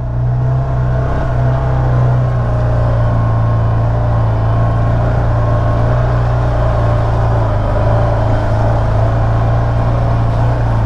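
Can-Am Maverick Sport 1000 side-by-side's Rotax V-twin engine running steadily at low trail speed, heard from inside the cab.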